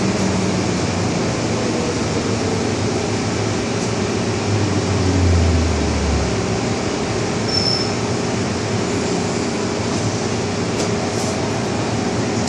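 MTR M-Train metro train running, heard on board: a steady rumble of wheels on rail and traction noise, with a deeper low rumble swelling for about a second and a half midway.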